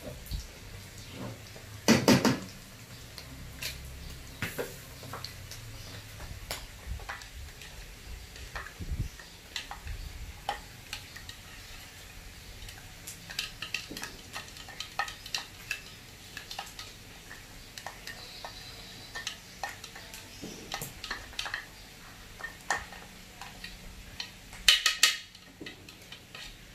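Utensils clinking, knocking and scraping against pots and a wok while food is stirred, in irregular strokes with a louder clatter about two seconds in and again near the end.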